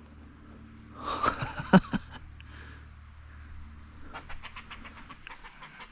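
A squirrel chattering in alarm. There is a rough burst about a second in, then a fast run of sharp chucks near the end.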